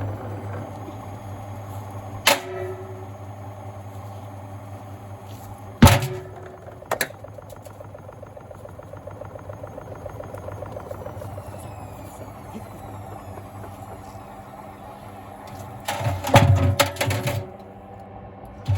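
Gorenje washing machine running with bricks in its drum: a steady motor hum, broken by heavy bangs as the bricks hit the drum, a few single knocks and then a rapid cluster of loud bangs near the end.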